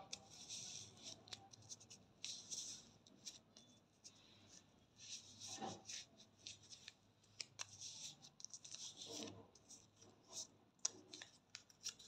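Hand rubbing a ready-to-use wax strip pressed onto the skin of the armpit: faint scratchy rubbing strokes in irregular spurts, with a few light clicks.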